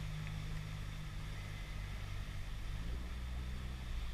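Boat motor running slowly and steadily with a low hum, its pitch shifting slightly about three seconds in.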